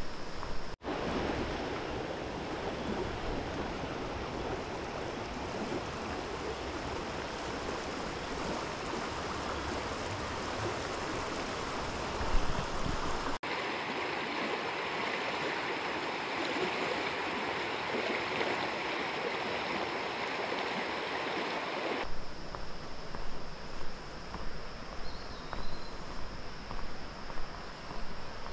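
River water rushing over rocks: a steady rush that changes abruptly about a second in, near the middle and about two-thirds through, where the recording cuts between shots.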